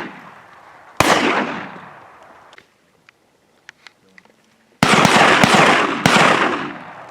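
Shotgun shots from duck hunters: one blast about a second in, then a close volley about five seconds in with another shot a second later, each ringing out and fading slowly.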